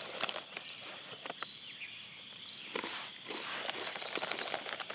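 Outdoor insect chorus: short high chirps repeated about twice a second over a steady high insect hum, with scattered nearby crackles and rustles.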